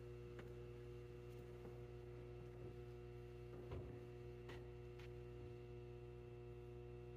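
Near silence: room tone with a steady low electrical hum and a few faint, small clicks.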